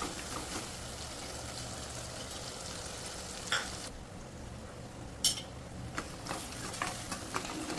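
Garlic, shallots and tomato sizzling steadily in sesame oil in a kadai while being stirred, with a few sharp scrapes of the spoon against the pan, loudest about three and a half and five seconds in.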